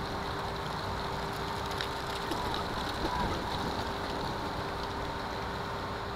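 Steady city background noise: distant traffic heard as an even haze, with a steady hum underneath and a few faint brief sounds about halfway through.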